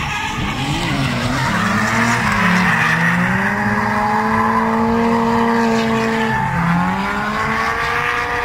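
Two drift cars sliding sideways in tandem, engines held at high revs with tyres squealing and spinning through the corner. The engine note dips about six and a half seconds in, then climbs again.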